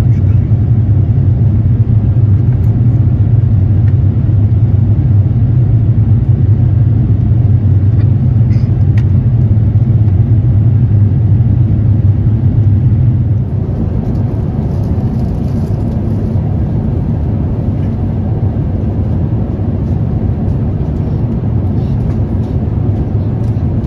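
Steady low cabin rumble of an Airbus A350-900 climbing out after takeoff: engine and airflow noise heard inside the cabin. About halfway through it becomes a quieter, steadier hum.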